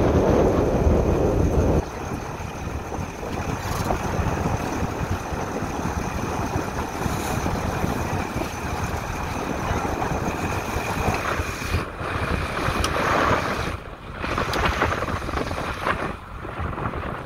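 Wind buffeting the microphone aboard a sailboat under way, over the wash of the sea. The buffeting is heaviest for the first two seconds, then eases to a lighter, steadier rush.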